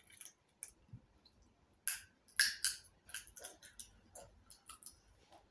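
Seeds being cracked open between the teeth: a few sharp cracks and small clicks, the loudest about two seconds in.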